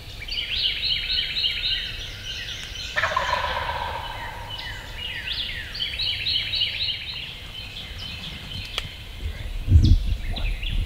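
Wild turkey gobbler gobbling several times, each gobble a rapid falling rattle of notes, with a low thump near the end.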